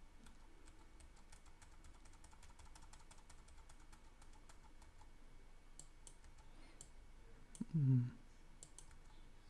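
Computer keyboard's F5 key pressed over and over to refresh a web page: faint repeated key clicks, a little louder about six seconds in and near the end. A short vocal murmur shortly before the end.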